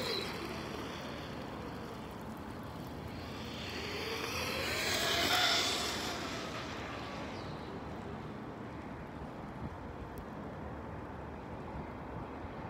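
Traxxas Stampede 4x4 RC monster truck's brushless electric motor and drivetrain whining as it speeds past, the pitch rising and then falling. The tail of one pass fades at the start, and a second pass peaks about five seconds in before fading away.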